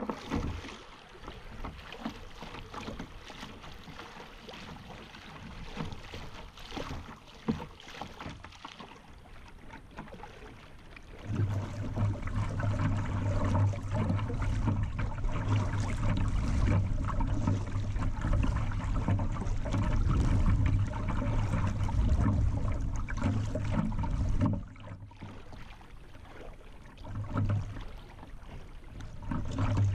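Water lapping and gurgling against a kayak's hull as it moves down a riffled river, with scattered small splashes. From about a third of the way in the rush of water becomes louder and lower, dropping away briefly near the end and coming back.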